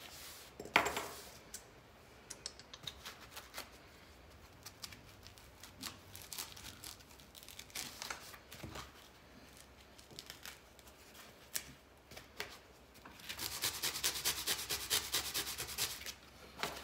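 Knife slicing through layered closed-cell Kaizen foam: short, scratchy cutting strokes scattered through, then a few seconds of continuous rapid scratching as the blade is drawn along the cut near the end.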